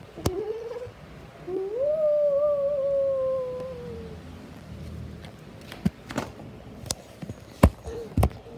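Black-and-white cat crying out while lying curled up: a short cry, then one long drawn-out yowl that rises and slowly sinks, which the owner takes for the cat having a nightmare. A few sharp knocks follow near the end.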